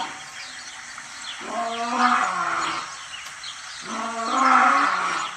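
A lion calls twice, about a second and a half each time, in low drawn-out moaning roars. The pitch of the first call sags near its end.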